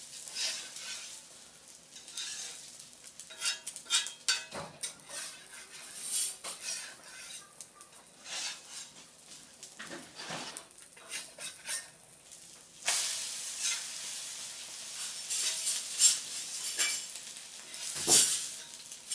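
Beaten egg, tomato and onion omelette mixture frying in a little oil in a frying pan, with a utensil scraping and clinking against the pan. A steadier sizzle sets in about two-thirds of the way through, with more scrapes over it.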